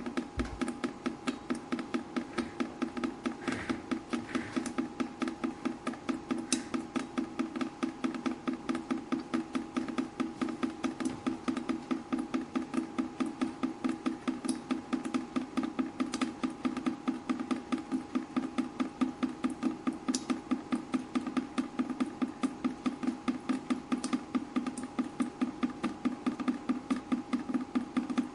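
Water dripping steadily in a fast, very even rhythm, several drops a second, each drop a short pitched plink.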